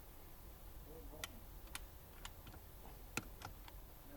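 A handbrake lever's ratchet clicking: sharp separate clicks at uneven spacing, most of them in the middle of the stretch. The lever is being worked to test the freshly adjusted rear handbrake shoes.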